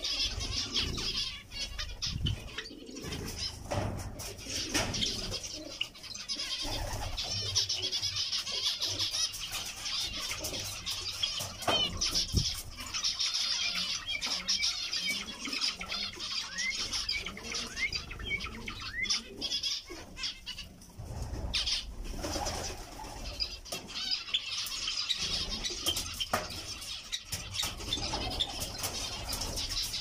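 A flock of zebra finches calling continuously, many short calls overlapping into a busy chatter, with occasional wing flutters.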